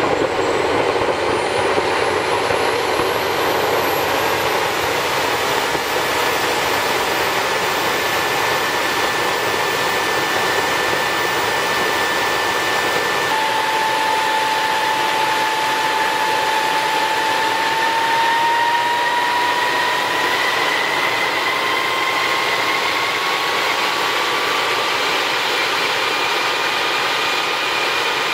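Small model axial-flow jet engine running with a steady rushing roar as it accelerates toward self-sustaining speed. A high whine climbs in the first few seconds, and from about halfway a lower whine slowly rises in pitch.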